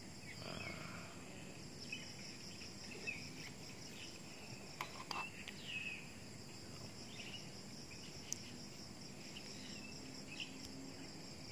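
Crickets trilling steadily, a fast pulsing drone, with a few short bird chirps over it.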